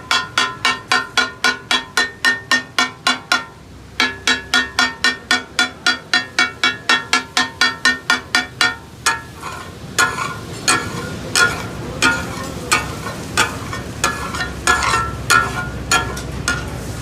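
Metal spatulas clanging and chopping on a steel tawa griddle in the fast takatak rhythm, about four ringing strikes a second. They break off briefly about three and a half seconds in, and after about nine seconds the strikes slow to an irregular beat.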